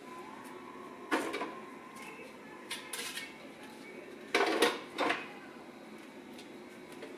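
Parts of a new coffee maker being handled and set down: a few short knocks and clatters, the loudest pair about four and a half to five seconds in.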